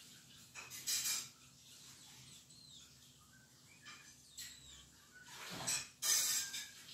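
Caged bulbuls giving a few faint short chirps. Louder brief rushing noises come about a second in and again near the end.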